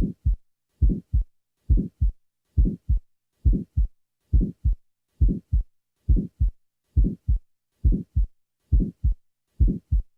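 Recorded heart sounds beating steadily at about 70 a minute, each beat a pair of thuds. The first sound runs into a short early systolic murmur that fades well before the second sound, typical of a small ventricular septal defect in the muscular septum.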